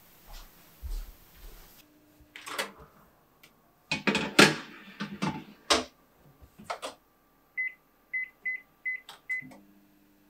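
Metal baking tray of gingerbread cookies clattering against an oven's racks as it is slid into a small countertop electric oven, and the door shut. Then five short beeps as the oven's buttons are pressed, and the oven starts with a low hum near the end.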